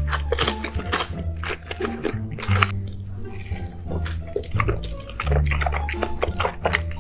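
Close-up eating sounds of mini corn dogs coated in thick dipping sauce: irregular clicks of biting and chewing, over background music with a low bass line.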